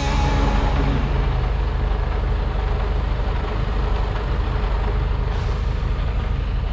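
Heavy truck engine running with a steady low drone and road noise, with a brief hiss about five seconds in.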